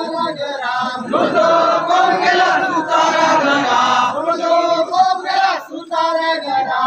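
A large crowd of men chanting together in loud, drawn-out phrases, each a second to three seconds long, with short breaks between them.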